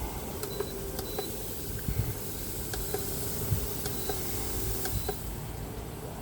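Battery-powered misting fan's small motor running with a steady hum, with scattered light clicks and two short high beeps near the start.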